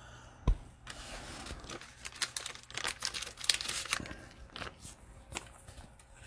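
Crinkling and rustling of trading-card packaging and plastic sleeves being handled, with a sharp knock about half a second in.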